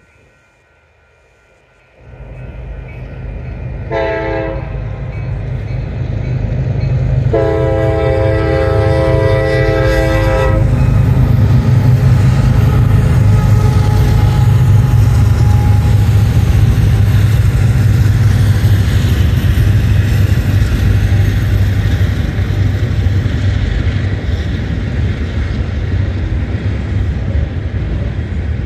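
Freight train led by a CSX SD70MAC diesel locomotive sounding its horn for a grade crossing: a short blast about four seconds in, then a long blast about seven seconds in, over the rising rumble of the approaching locomotives. The diesel locomotives then pass close by, followed by the steady rumble of double-stack intermodal container cars rolling past.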